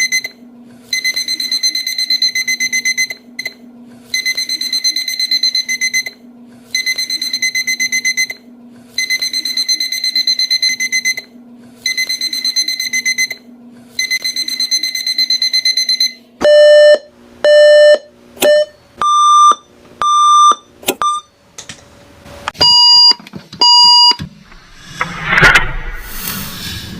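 Electronic alarm clock buzzers. One buzzes in repeated bursts of about two seconds with short gaps, over a low hum. About two-thirds of the way through, other clocks take over, beeping in short pairs at several different pitches.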